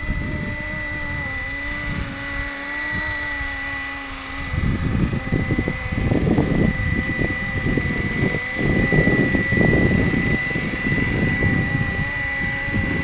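470-size RC scale helicopter running with a steady high whine and a lower hum from its motor and rotors. From about a third of the way in, strong wind gusts buffet the microphone.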